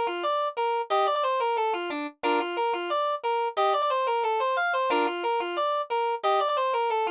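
Electronic instrumental music in a fast tempo (190 bpm): a bright keyboard-like synth playing quick staccato note runs, with a short break about two seconds in.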